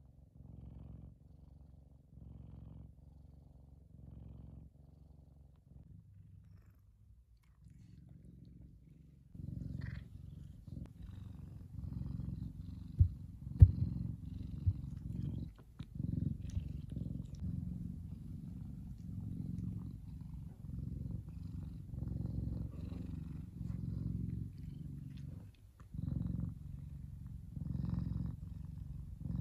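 Savannah cat purring: a low, steady rumble that rises and falls about once a second, faint at first and much louder from about a third of the way in. A few brief knocks near the middle are the loudest sounds.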